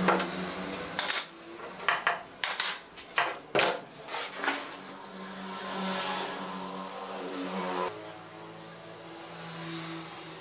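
A quick run of sharp clicks and knocks in the first half, from hand work at a workbench, over a steady low hum that runs on alone afterwards.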